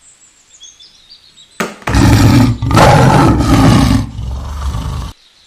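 Leopard roaring and growling, loud and rough, in two or three long breaths, cutting off abruptly about five seconds in.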